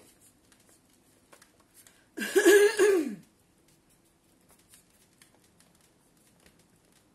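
A woman's short voiced sound, about a second long and dropping in pitch at its end, a couple of seconds in. Around it there are only faint clicks of hands working soft cold-porcelain clay on a tabletop.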